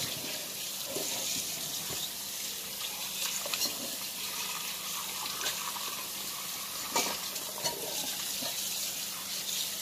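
Kitchen tap running steadily into a sink while a whole raw chicken is rinsed under it by hand, with a few splashes and knocks against the sink.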